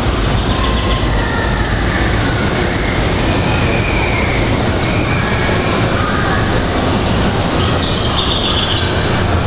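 G scale model freight train rolling past on track, a steady rumble of wheels with faint high wheel squeal. A brief high-pitched sound comes about eight seconds in.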